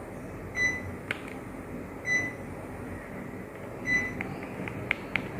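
Panasonic CS-YN7WKJ split air conditioner's indoor unit beeping three times, short high beeps about a second and a half apart, the unit's acknowledgement of remote-control commands. A few sharp clicks come near the end, over a steady background hum.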